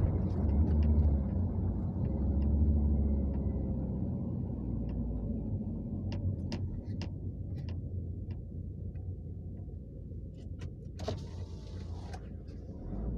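A Ford van's diesel engine heard from inside the cabin, pulling under throttle for the first few seconds and then easing off as the van slows. A series of light clicks comes midway, and a short hiss near the end.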